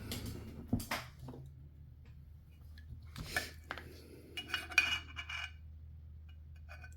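An RC parts tray being handled and set about on a table: a few sharp knocks and clinks, with a short ringing clatter around the middle.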